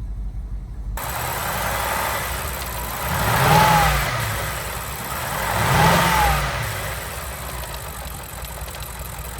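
BMW N62 4.4-litre V8 idling with a misfire, revved briefly twice, the pitch rising and falling each time, a little over two seconds apart.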